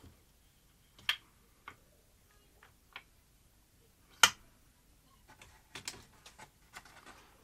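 Scattered sharp clicks and taps of metal parts being handled while a replacement video head drum is fitted into a Philips N1700-type video recorder mechanism. The loudest click comes about four seconds in, followed near the end by a run of smaller clicks.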